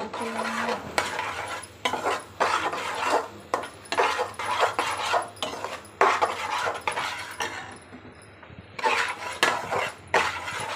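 Metal spatula scraping and stirring a dry halwa mixture of flour roasting in a stainless steel kadai, in repeated rasping strokes with a short lull after about seven seconds.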